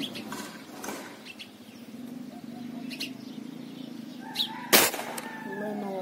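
A single sharp rifle shot about three-quarters of the way through, over faint bird chirps and a low steady hum.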